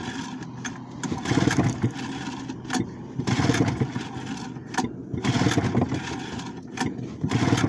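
Two-cylinder outboard engine being cranked by its pull-cord starter, four pulls about two seconds apart, each a second-long churning rattle, without catching. The engine has not run for about ten weeks and its carburettor float is overflowing, which makes it a flooded, hard-starting motor.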